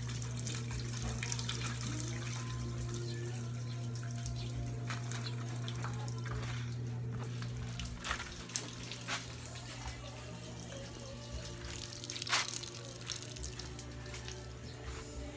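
Water running from a tap and splashing into a basin, with music playing throughout. There are a few sharper knocks about halfway through and again near the end.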